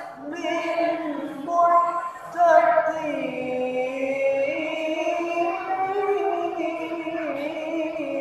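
Man reciting the Quran in melodic tilawah style, singing a variation in maqam Hijaz at its base pitch. A few short phrases give way, about three seconds in, to one long held note with a wavering ornament.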